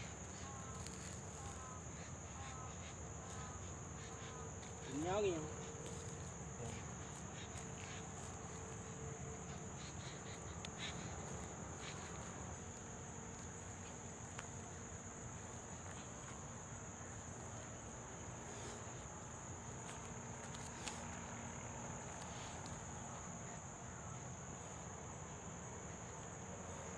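Steady high-pitched buzz of insects, with a single brief, loud call that slides in pitch about five seconds in.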